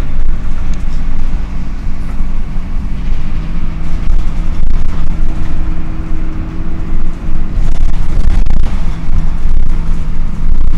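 Dennis Dart SLF single-deck bus standing with its engine cooling fan running: a loud, steady rumbling drone, with a held hum that comes up about three seconds in.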